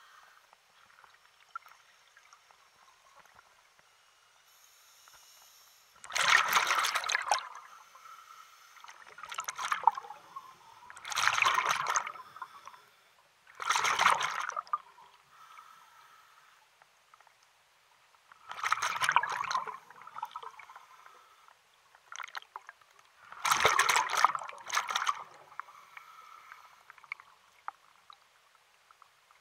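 Water splashing and sloshing in about six separate surges a few seconds apart, each lasting about a second, over faint lapping between them.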